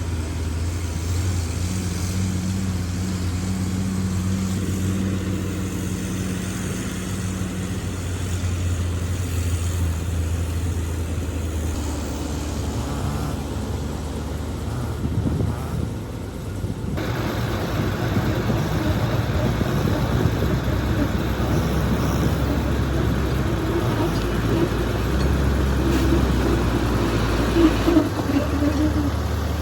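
Diesel engines of heavy earthmoving machines running and working, the engine note shifting in pitch as the load changes. About halfway through the sound grows fuller and a little louder.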